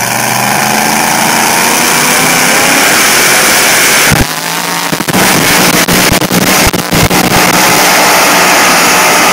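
Engine of a modified two-wheel-drive pulling pickup running flat out under heavy load as it drags a weight-transfer sled. The steady engine sound breaks up from about four seconds in into a choppy run of sharp cracks and brief dropouts.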